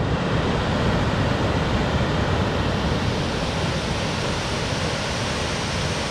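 Small river waterfall rushing close by: a steady, even rush of falling water.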